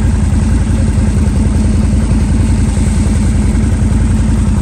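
ATV engine idling with a steady, fast low throb, no revving.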